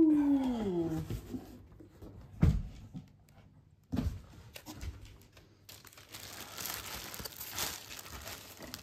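Packaging being handled while a new air purifier is unboxed: two sharp thumps a couple of seconds apart, then crinkling and tearing of wrapping in the second half. It opens with a brief falling voice sound.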